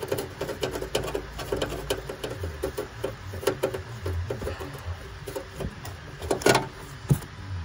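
Irregular light clicks, taps and rattles of hand work on engine parts: a gloved hand handling the PCV valve and its bolts, with one louder knock about six and a half seconds in.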